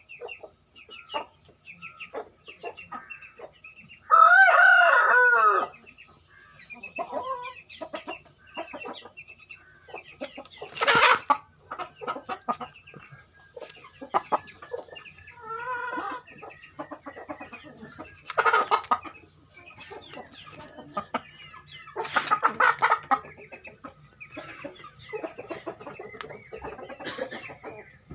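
Aseel chickens clucking throughout, with one rooster crow about four seconds in, the loudest sound. A few short bursts of noise come later.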